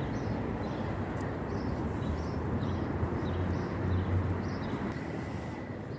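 Outdoor city traffic ambience: a steady low rumble of road traffic that swells around four seconds in as a vehicle passes, with short high ticks repeating about twice a second.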